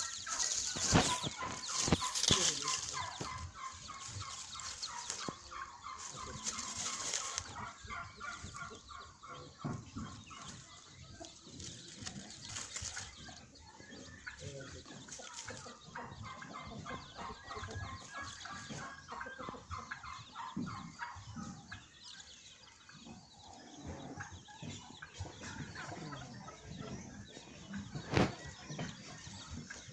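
A deshi hen and her brood of chicks: the chicks cheep in a steady stream of short, high notes, heaviest in the first half, with the hen clucking among them. A few sharp knocks come through, the loudest near the end.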